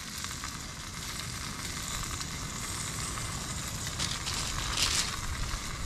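Ribs and vegetables frying in oil on a titanium plate over a campfire, a steady sizzle, with a few brief sharper hisses about four and five seconds in.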